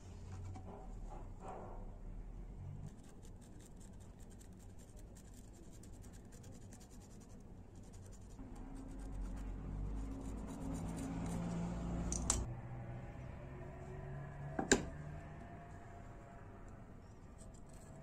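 Pencil scratching across the ridged surface of a mountain goat horn as it is marked for cutting, with light handling noise. Two sharp clicks come in the second half, the second louder and briefly ringing.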